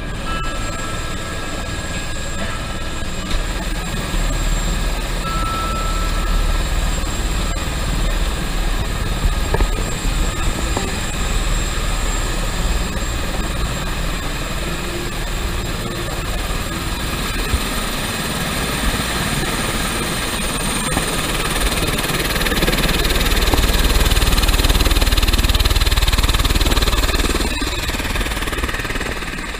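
Helicopter's turbine engine and rotor running on the ground after landing, a steady whine over a heavy low rumble, heard through the open cabin door. It grows louder in the last few seconds as the listener steps out beside the helicopter.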